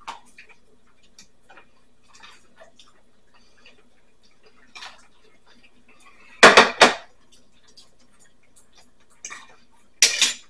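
Faint, scattered clicks and taps of a fork on a plate, then a loud clatter of a plate and cutlery about six and a half seconds in and another near the end.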